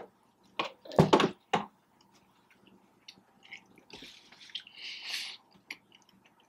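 Close-up eating sounds of a sandwich being chewed: wet mouth clicks and smacks, with several sharp clicks in the first two seconds and two short hissy rustles about four and five seconds in.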